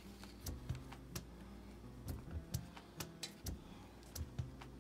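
Small plastic candy-kit tray and packets being handled by hand: light, irregular clicks and taps, about a dozen, with no steady rhythm.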